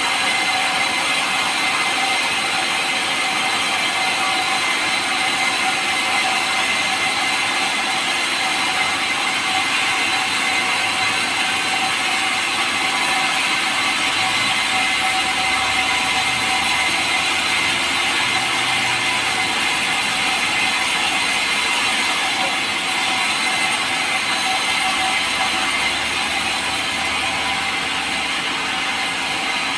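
Power saw running steadily through pulai timber, a light, soft wood, with a constant whine over an even noise.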